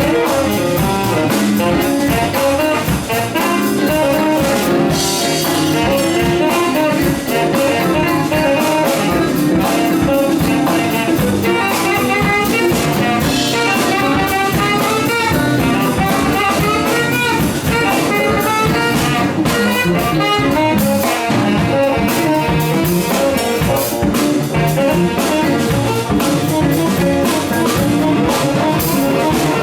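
A small band playing jazz-funk: drum kit and guitar keep a steady groove, and a horn plays a lead melody over them.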